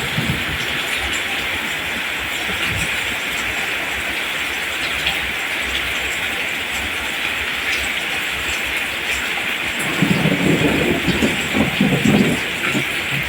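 Steady rain falling, an even hiss. About ten seconds in, a low rumbling rises for a couple of seconds over the rain.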